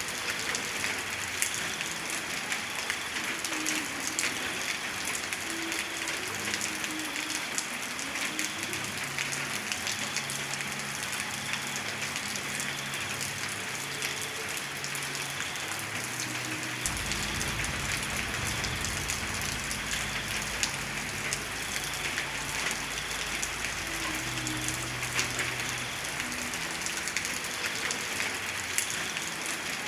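Steady heavy rain falling, an even hiss with many separate drop hits. A deep low rumble joins about halfway through.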